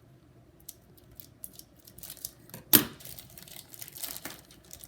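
Plastic toy packaging being cut with scissors and torn open, crinkling, with one sharp snap a little under three seconds in and denser rustling after it.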